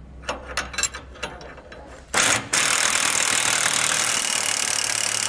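A few light metal clicks, then about two seconds in a cordless impact wrench fires a short burst and settles into a steady loud hammering, driving a 15/16-inch socket to tighten an anti-sway bar mounting bolt.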